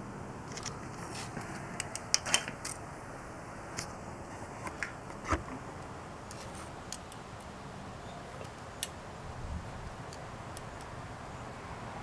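Scattered small metallic clicks and taps of hand-tool work at the oil filter housing, as a pick is pushed into the new check-valve adapter against the check ball and its spring. The loudest taps come in a quick cluster about two seconds in and once more a little after five seconds, over a faint steady hum.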